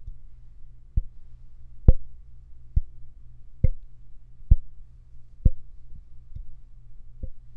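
Finger taps on the metal body of a Soyuz SU-023 Bomblet large-diaphragm condenser microphone, heard through the microphone itself, to check it for resonant frequencies. About eight taps come roughly a second apart, each a short knock with a brief ring, over a steady low hum.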